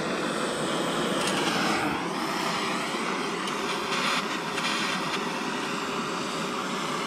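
Handheld gas torch on a yellow fuel cylinder running with a steady hiss while it burns old upholstery remnants off the coil springs of a bench seat.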